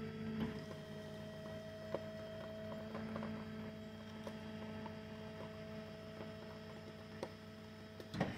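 Shed-moving trailer rig's motor running with a steady hum, with a few light clicks during it and a short cluster of louder knocks near the end as the shed is eased off onto its gravel pad.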